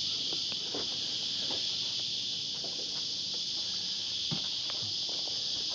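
Steady high-pitched chorus of insects, with a few faint scattered knocks underneath.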